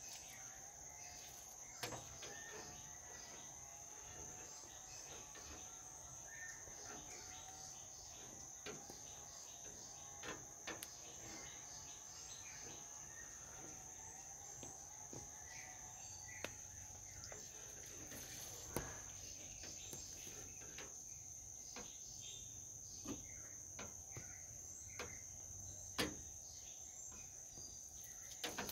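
Crickets chirping steadily in the background, with a few faint scattered clicks and taps as rubber beading is pressed by hand onto the metal rim of a three-wheeler's rear window opening.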